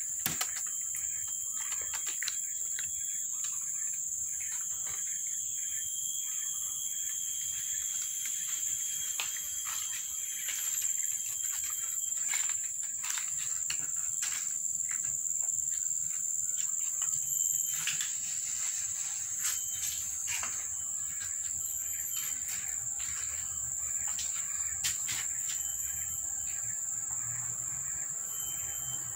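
Steady, high-pitched drone of insects shrilling outdoors, with scattered faint clicks and ticks over it.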